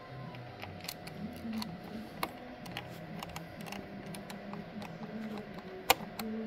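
Small screwdriver turning screws into a laptop's plastic back panel: a run of light scratchy ticks and clicks, with one sharper click near the end.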